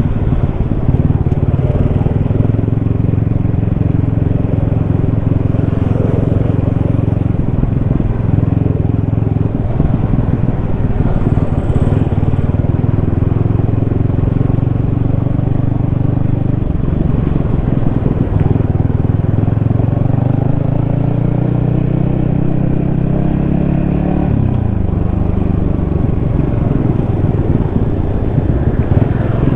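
Yamaha XSR155's single-cylinder engine running under way, heard from a helmet-mounted camera. Near the end the engine note climbs for a few seconds, then drops suddenly.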